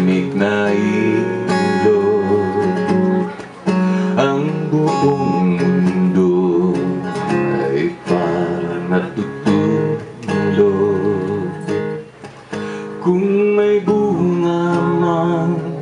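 Background music: an instrumental passage of a Filipino folk song, led by strummed acoustic guitar with a wavering melody line over it.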